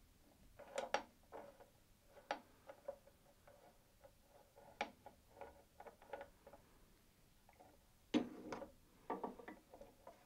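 Screwdriver undoing the screws on a mitre saw's guard retraction arm and blade bolt cover: faint, irregular small metallic clicks and taps, with a cluster of louder knocks about eight seconds in.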